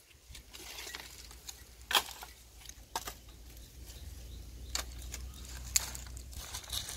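Dry sticks knocking and clattering as firewood is gathered and laid on a pile, with a few sharp clacks, the loudest about two seconds in, amid rustling of leafy undergrowth.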